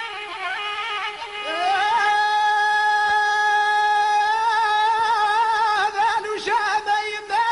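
Traditional Chaoui song from the Aurès: a short violin phrase, then a singer's voice glides up into one long held note with vibrato, breaking into wavering ornaments near the end.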